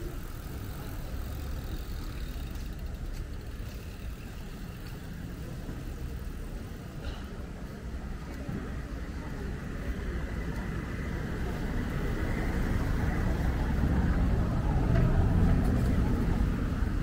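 A motor vehicle's engine running, getting louder over the second half and loudest near the end.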